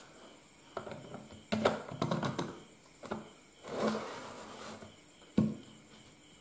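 Hands handling a small 12-0-12 volt step-down transformer, its wires and a plug being pushed into a wall socket: several clicks and knocks with short bits of rustling, the sharpest knock about five seconds in.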